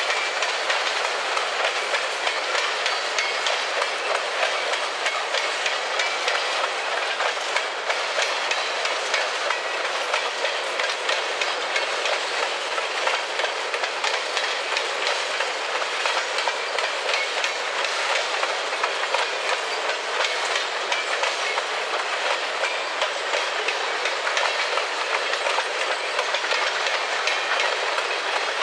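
Freight train of covered hopper cars rolling past at steady speed: a continuous steel-wheel-on-rail running noise with many quick clicks as the wheels cross rail joints.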